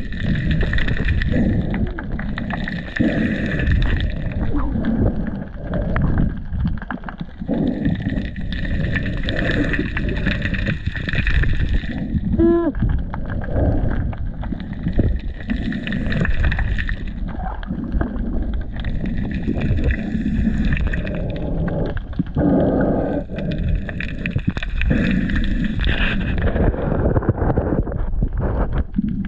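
Muffled water noise on an underwater camera housing: a steady low rumble and gurgling that surges every few seconds as the camera moves through the water, with a brief rising squeak about halfway through.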